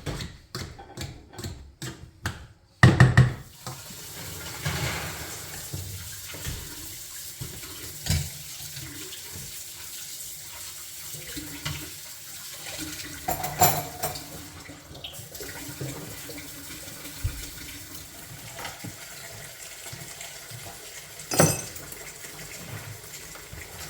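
Quick regular knocking, about three strokes a second, for the first few seconds, ending in one loud knock; then water running steadily from a kitchen tap, with a few clinks of dishes.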